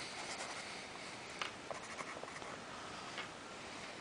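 Pencil writing on a lined spiral-bound notepad page, a faint scratching with a few short ticks as the lead strokes and lifts.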